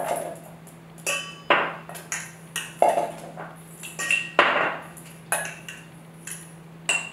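Spoon and metal mixing bowl clinking against a small glass jar as dry spice rub is transferred into the jar: a string of irregular sharp clinks and taps, some with a short ringing.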